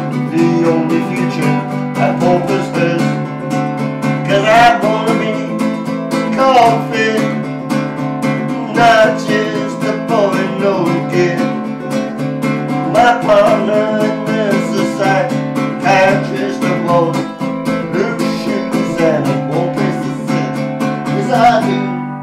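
Baritone ukulele strummed in an instrumental close to a song, a melody moving over steady chords. Near the end the last chord is left to ring and fade.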